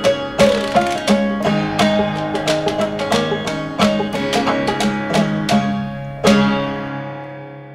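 Background music of quickly plucked strings. It ends on a final chord about six seconds in that rings out and fades away.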